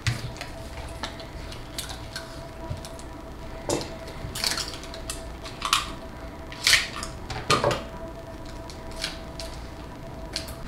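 Kapton tape being pulled off its roll and pressed onto the sides of a pack of cylindrical lithium-ion cells: short hissy rasps of tape peeling, a few seconds apart, amid scattered clicks and rustles of handling. A faint steady tone hums underneath.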